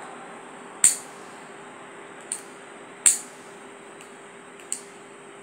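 Four short, sharp clicks spaced irregularly over a steady background hiss with a faint steady hum.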